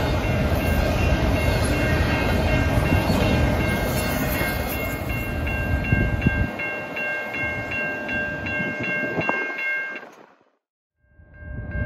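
Norfolk Southern intermodal freight train rolling past, its cars rumbling and rattling on the rails; the low rumble drops away about six and a half seconds in. A high ring pulsing about three times a second sounds over it and stands out once the rumble drops, then everything fades out near the end.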